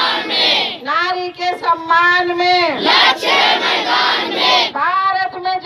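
Protest chanting in Hindi: a woman calls out slogans in a drawn-out, sing-song voice through a microphone and loudspeaker, and a group of women shouts the response together. A steady low hum runs underneath.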